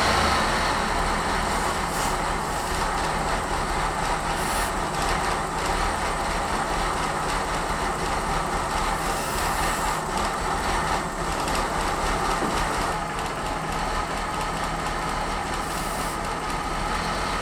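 Mazda Miata NA's four-cylinder engine idling steadily, with a vacuum leak around the throttle body that makes it idle poorly, while carburetor cleaner is sprayed around the throttle body gasket and shaft to find the leak.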